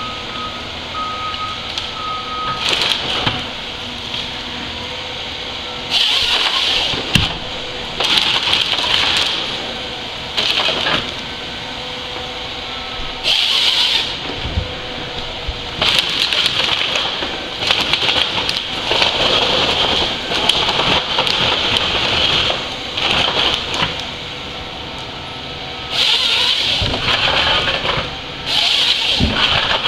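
A forestry harvester's engine runs steadily. About ten loud, high-pitched bursts break over it as the harvester head's chain saw cuts logs to length.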